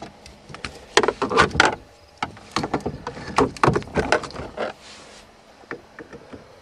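Scattered clicks, knocks and scrapes of a screwdriver being handled in the stripped ignition lock on a 1990 Honda Civic's steering column, the screwdriver serving in place of the key. They come in quick clusters for the first few seconds and thin out near the end.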